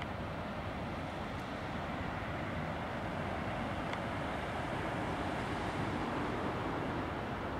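ChME3 diesel shunting locomotive's six-cylinder engine running as the locomotive moves off, a steady low rumble.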